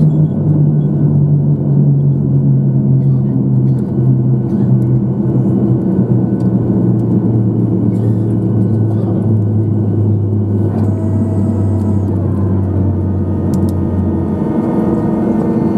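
Cabin noise of a Boeing 737-900 rolling out after landing: the CFM56 engines' low drone slides steadily down in pitch as they spool down from reverse thrust, dropping out near the end, over runway rumble. A fainter higher whine joins about two-thirds of the way through.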